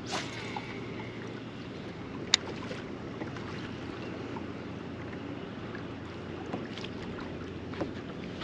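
A crankbait cast from a casting rod: a swish and the thin whir of the baitcasting reel's spool paying out line for about a second, then a single sharp click a couple of seconds in as the retrieve begins. Steady wind and water noise run underneath.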